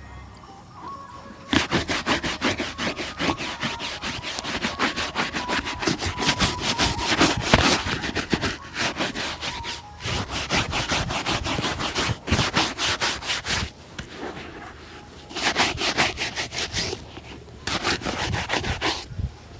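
A leather shoe being buffed in a shoe shine, with fast back-and-forth rubbing strokes at about five a second. One long run starts about a second and a half in, and two short bursts follow near the end.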